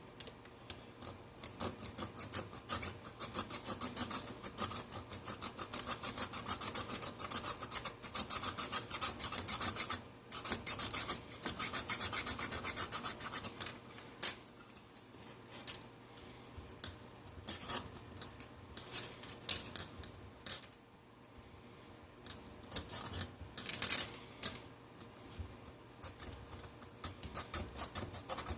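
Rapid scraping strokes on a phone's frame as old touchscreen adhesive and glue residue are scraped off, coming in quick runs with short pauses between them.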